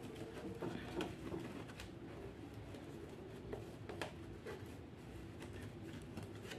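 Faint rustling of damp coconut fibre being pressed by hand into a cut plastic bottle, with a few light clicks.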